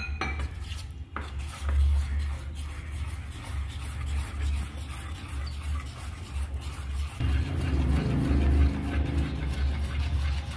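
Metal spoon beating thick besan batter in a stainless steel bowl, a steady run of wet stirring strokes with an uneven, pulsing low rumble.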